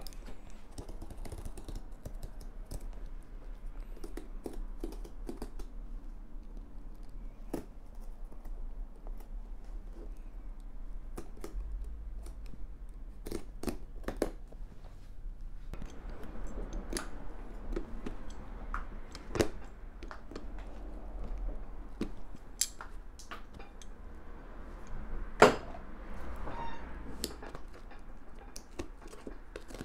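Boot outsole being pried and peeled off by hand and worked loose with a knife: irregular clicks, taps and scraping of rubber against leather, with one sharp, much louder knock about 25 seconds in, over a steady low hum.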